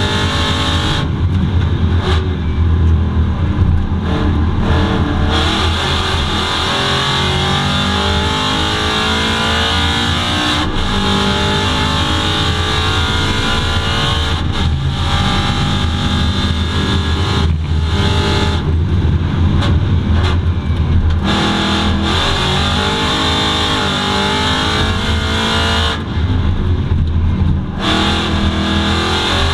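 Aston Martin V8 Vantage GT4 race car's V8 engine heard from inside the cockpit at racing speed, its revs climbing through the gears and falling away several times as the driver lifts and brakes for corners.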